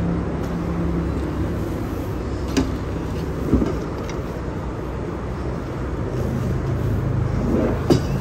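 Cardboard flat-pack furniture boxes knocking against a pickup truck bed as they are loaded: a few sharp thuds, the loudest near the end. Under them runs the steady drone of a vehicle engine.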